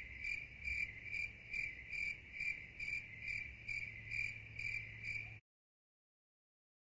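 A cricket chirping in an even, steady rhythm, about two to three faint high chirps a second. The chirping cuts off abruptly about five seconds in, leaving silence.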